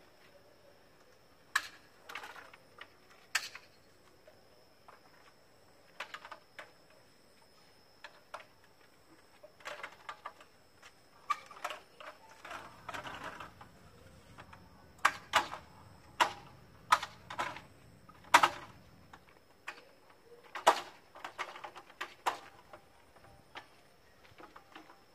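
Sumika SKM 404 telescopic aluminium ladder being collapsed and folded: an irregular series of sharp metal clacks and knocks as the telescoping sections slide down and the locks and hinges click, with a short rattling stretch midway.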